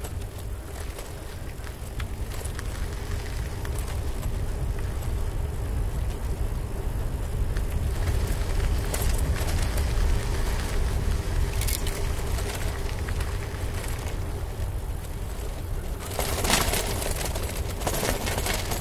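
Bicycle ride on a trail: wind rumbling on the camera microphone over the tyres' rolling crunch. The crunching and rattling grow louder about nine seconds in, and more so around sixteen seconds in.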